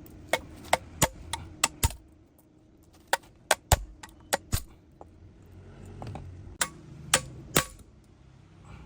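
Metal tools and engine parts clinking and knocking against each other, a dozen or more sharp irregular taps with a couple of short pauses between clusters.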